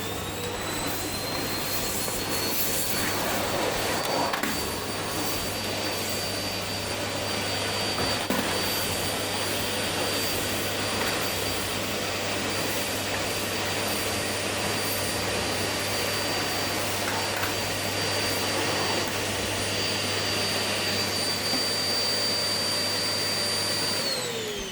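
Vacuum cleaner running steadily, a motor whine over a rush of airflow, which winds down near the end as it is switched off.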